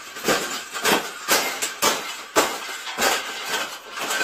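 A wire bird cage being stomped flat under boots: repeated jumps land on it about twice a second, each a crunching clank and rattle of bending wire.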